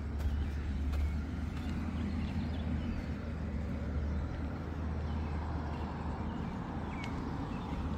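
Outdoor ambience on a walk: a steady low rumble with light footsteps and a few faint bird chirps.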